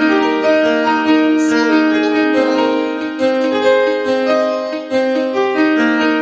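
Background piano music: a slow melody of held notes, changing about once a second.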